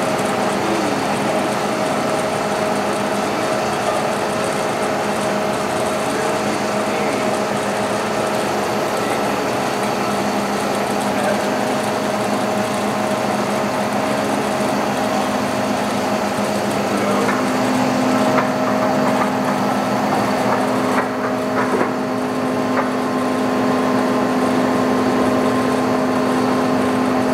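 TOS SU125 heavy engine lathe running, its motor and headstock gearing giving a steady hum with a gear whine. About seventeen seconds in, a further tone joins, as the drive changes.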